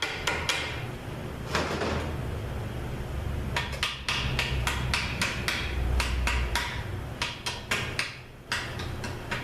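Sharp metal taps and clinks of hand tools against transmission parts, coming in several quick clusters, as a jammed part is knocked and pried loose.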